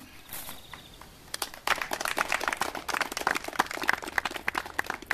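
A small audience clapping, starting about a second in: many quick, irregular hand claps.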